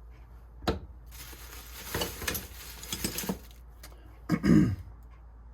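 Old metal hand tools clinking and rustling as pliers are handled and set down: a sharp click about a second in, then about two seconds of rattling with scattered clicks. A brief louder sound comes near the end.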